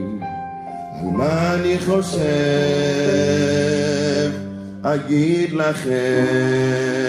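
A slow sung melody: one voice holding long notes, sliding up into a new note about a second in and again around five seconds in, over steady sustained accompaniment.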